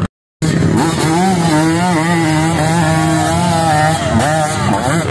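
Dirt bike engine held at high revs on a hill climb, a steady buzzing pitch that wavers slightly, then drops about four seconds in and climbs again. It cuts in after a brief silence at the start.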